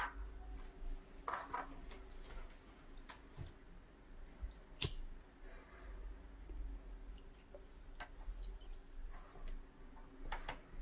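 Irregular small clicks and taps, the sharpest about five seconds in, over a faint steady low hum.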